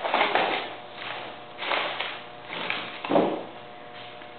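Hands rustling and knocking among the wiring, batteries and push button of a homemade PVC air cannon, in several short bursts, over a steady hum.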